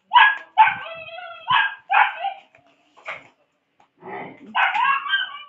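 A dog barking and yipping in about six short, pitched cries, one of them drawn out, with a louder run of barks near the end.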